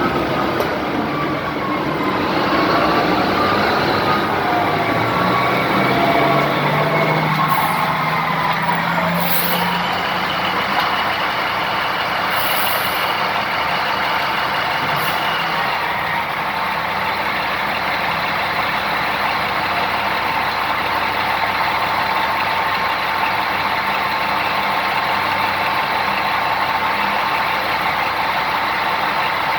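Large mining haul truck engines running, their pitch gliding up and down over the first several seconds, with a few short sharp hisses of air brakes between about 7 and 15 seconds in. After that the engines settle into a steady drone with a constant whine.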